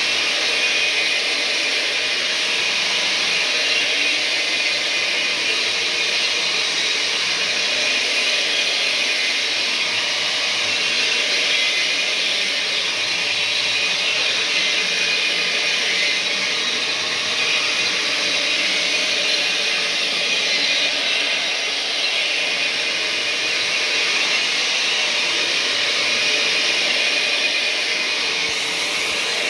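Counter-rotating brush carpet machine running steadily, its electric motor and brushes working through the carpet pile.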